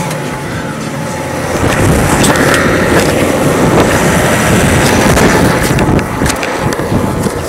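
McCormick tractor running while ploughing: a dense engine rumble mixed with rattling, growing louder about a second and a half in and staying steady after that.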